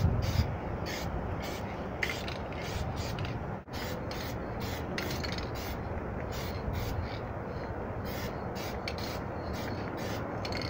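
Hand rubbing with quick, uneven rasping strokes, as if working the lower edge of a pickup's rocker panel, over a steady background hiss.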